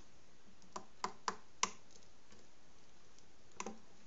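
Light, sharp clicks of hard parts being handled at a drill press, with a plywood jig held against the chuck. There are four in quick succession about a second in, then a quick double click near the end.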